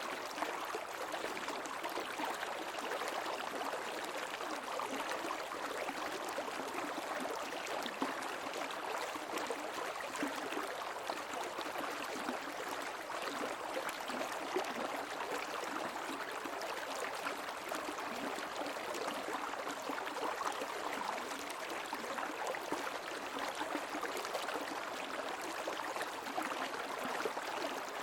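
Stream water flowing steadily, a continuous rushing wash with fine flickering detail and no pauses.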